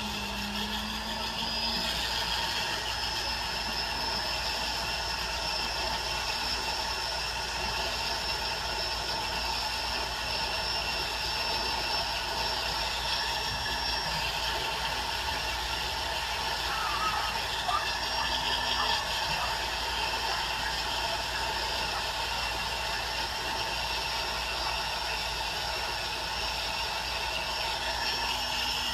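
Small jeweler's rotary tool running steadily with a high whine while smoothing down a weld on a metal charm, with a few brief louder touches about two-thirds of the way through.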